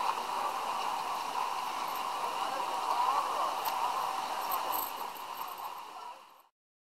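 Pool-side crowd and water noise with faint indistinct voices, played back through laptop speakers, cutting off abruptly near the end.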